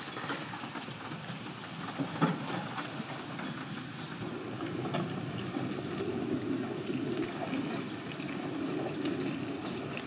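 Outdoor ambience: a steady hiss with a thin, steady high whine that jumps higher about four seconds in. In the first few seconds a loaded wheelbarrow gives a couple of short clunks.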